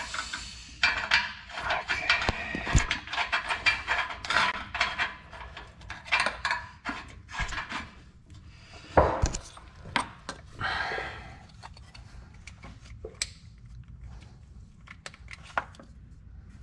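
Small clicks and rattles of oxygen-sensor wiring and its plastic connector being handled and routed under a car, with a dull knock about nine seconds in. The handling noises thin out after about eleven seconds.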